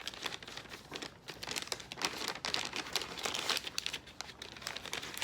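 Plastic MRE packaging crinkling and crackling in irregular handling as the sealed entrée pouch is worked into the flameless ration heater bag.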